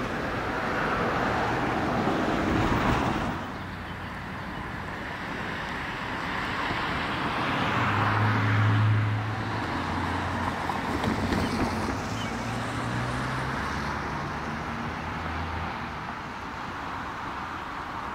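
Road traffic passing: a rushing noise from vehicles that swells and fades twice, with wind on the microphone. A low, steady engine hum comes in about halfway through.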